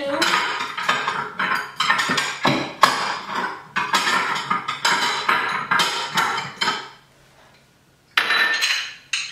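Dishes and kitchenware clattering and clinking in quick succession as things are taken out of kitchen cabinets, pausing for about a second near the end before a few more clanks.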